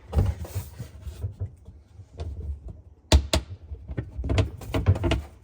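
Wooden cabinet board being worked free of its push-button release clips and lifted out of a kitchen cabinet: a string of clicks, knocks and clatters against the cabinet, with the loudest knock about three seconds in and a cluster of knocks a second or so later.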